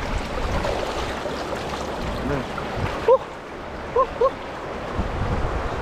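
Stream water running steadily over rocks, with three short chirps about three and four seconds in.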